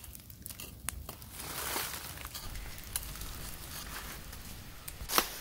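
Open wood fire crackling, with scattered small pops and one louder snap about five seconds in.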